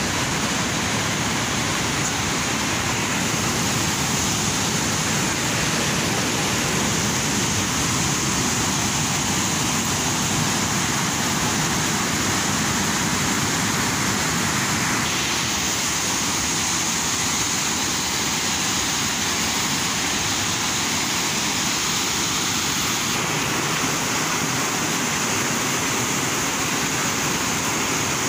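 River rapids rushing over rocks: a steady, even sound of white water.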